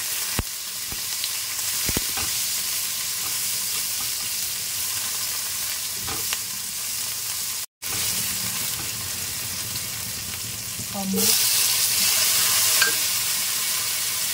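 Sliced red onion, garlic and ginger sizzling in hot oil in a wok while being stirred with a silicone spatula. The sound cuts out for a moment just past halfway, and the sizzle grows louder about three-quarters of the way through.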